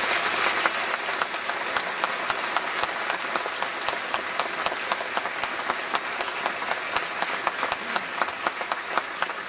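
Audience applauding steadily: a dense round of hand clapping.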